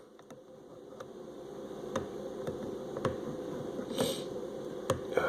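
Scattered small metal clicks and scrapes of a Wenger multi-tool's can opener working at the lid of a tin can, failing to get a grip. A steady low buzz runs underneath and grows slowly louder, with a short hiss about four seconds in.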